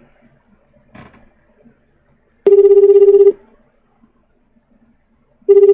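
Ringback tone of an outgoing phone call, heard through the phone: two rings about three seconds apart, each a low buzzing tone just under a second long, the second starting near the end.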